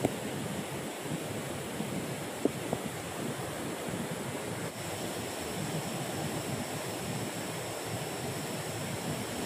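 River water rushing over rocks in a shallow riffle, a steady rush of noise.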